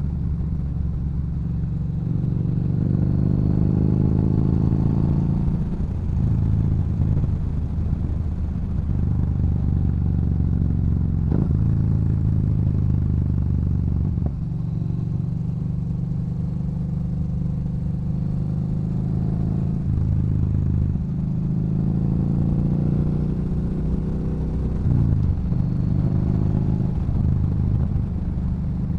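Yamaha Bolt's air-cooled V-twin through a Cobra aftermarket exhaust, riding along. Its pitch rises under throttle and drops at each gear change, several times over.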